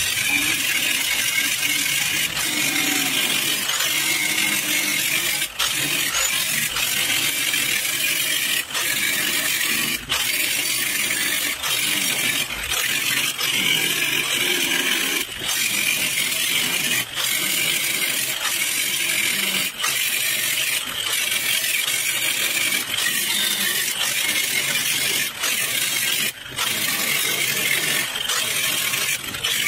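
Angle grinder with a thin cutoff wheel cutting slots around a rusted cast-iron VW Beetle brake drum to cut out its hub: a steady, high metallic grinding, broken by short gaps every second or two.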